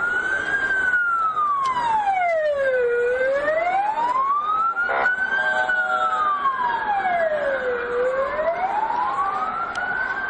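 Ambulance siren wailing, its pitch sweeping slowly up and down about once every five seconds, with a second siren overlapping more faintly.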